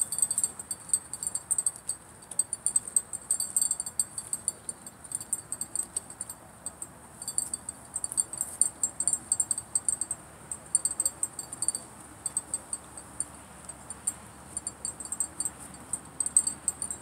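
Insects chirping in rapid, high-pitched pulse trains that come and go in bursts every second or so, over a faint outdoor hiss.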